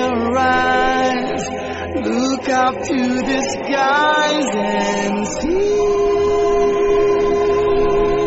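Music with singing voices over accompaniment; a long held sung note runs through the second half.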